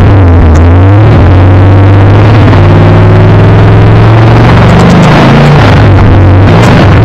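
A 468 cubic-inch big-block V8 in a 1970 Chevy CST-10 pro street truck running in the garage. It is revved a couple of times, the pitch climbing and dropping back about five seconds in and again near the end. It is heard from inside the cab, very loud and distorted.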